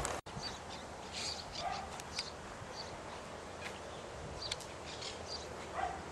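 Small birds chirping in short, scattered calls over a steady background hiss.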